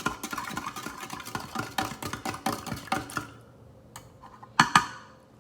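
A spoon clinking fast and unevenly against a container while stirring a drink, with a faint ringing to the strikes, dying away after about three seconds. Two sharp knocks close together follow about four and a half seconds in.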